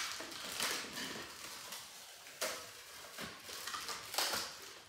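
Cardboard packaging and a plastic bag rustling and crinkling as they are handled, in several short bursts.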